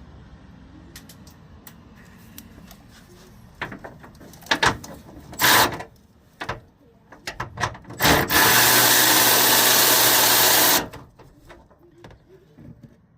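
Handheld power tool spinning nuts off a truck's headlight bezel: scattered clicks and a brief squeeze of the trigger, then a steady run of about two and a half seconds that stops abruptly.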